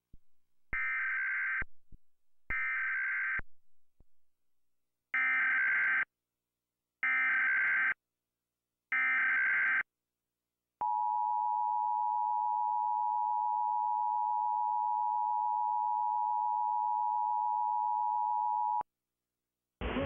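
Emergency Alert System SAME header: bursts of screechy digital data, two among clicks in the first few seconds, then three more of about a second each, two seconds apart. They are followed by the EAS two-tone attention signal, a steady dissonant tone held for about eight seconds that stops abruptly, which signals the start of a national test alert.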